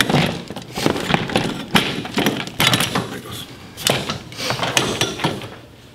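Steering shaft and column being worked into a UTV's frame by hand: a string of knocks, taps and metal clinks as the parts bump against the chassis and brackets, dying down near the end.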